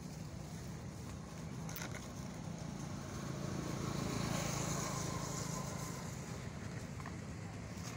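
Steady outdoor rumble with a motor vehicle passing, its sound swelling and fading about halfway through.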